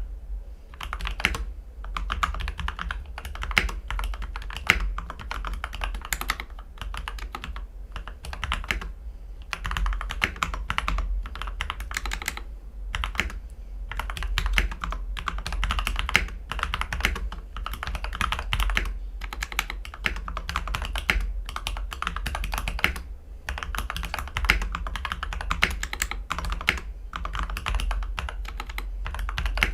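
Mechanical keyboard typing: Gateron Ink V2 Black linear switches, lubed and filmed, in a CIY X77 board with an aluminium plate, a tape mod and PE foam. The keystrokes run in a steady stream with a few short pauses, over a steady low hum.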